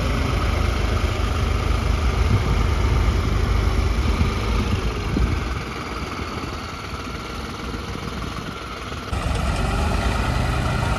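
Diesel tractor engines running steadily with a deep hum. The sound drops a little from about halfway through and comes back up sharply near the end.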